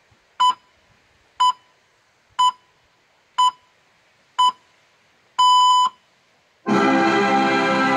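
Radio time-signal pips played loud through a car's audio system: five short beeps of one steady pitch, one a second, then a longer sixth beep marking the exact time. Loud music breaks in about a second later.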